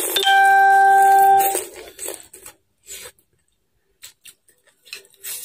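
A person slurping noodles in through the lips: one long, loud slurp with a steady whistling tone, lasting about a second and a half. It is followed by smaller chewing and clicking sounds.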